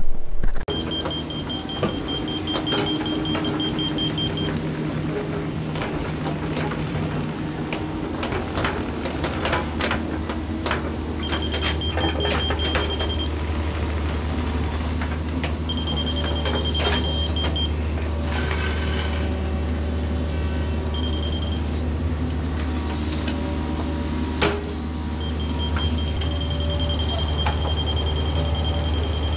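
Kubota KX71 mini excavator's diesel engine running steadily under work, with its travel alarm beeping rapidly in spells of a few seconds. Scattered knocks and scrapes of dirt and the bucket are heard throughout, one louder knock about 24 seconds in.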